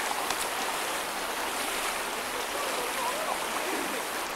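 River water running steadily, a constant rushing with no breaks.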